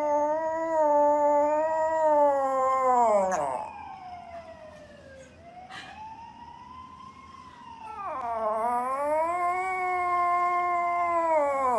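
Toy poodle howling: two long, wavering howls, the first ending in a falling slide about three and a half seconds in, the second starting about eight seconds in. A fainter rising-and-falling wail lies between them.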